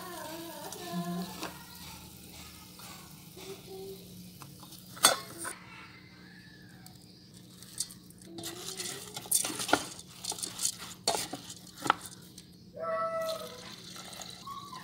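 A plastic rice paddle stirs and knocks against the stainless inner pot of a rice cooker while rice is tipped in. There is one sharp knock about five seconds in and a run of clattering later. Near the end come a couple of short high-pitched calls.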